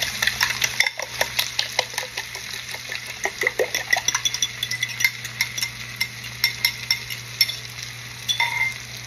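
Fork beating eggs in a glass bowl, rapid clinks of metal on glass with a short ring to each. The eggs are then poured into a pan of frying bitter melon and the bowl is scraped with the utensil, over a faint sizzle and a steady low hum.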